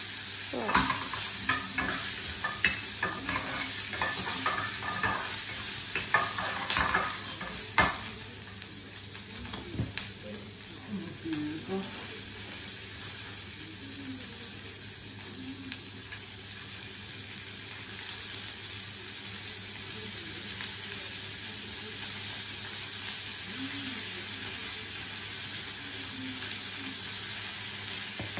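Sliced onions sizzling in a small frying pan over a portable gas burner, with cooking chopsticks clicking against the pan through roughly the first eight seconds. After that the sizzle carries on steadily, with only an occasional click, as the beef goes in and cooks.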